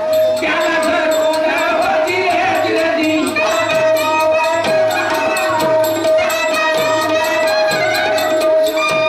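Live Marathi tamasha folk music: a man singing over a dholki drum whose deep strokes slide down in pitch about once a second, with quick metallic jingles and a steady held note underneath.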